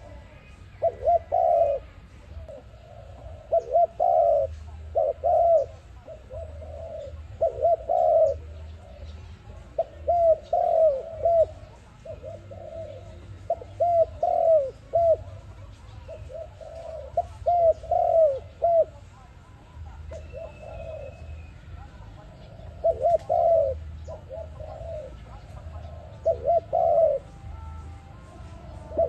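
Dove cooing: short phrases of a few coo notes, repeated every two to three seconds with a brief pause about two-thirds of the way through.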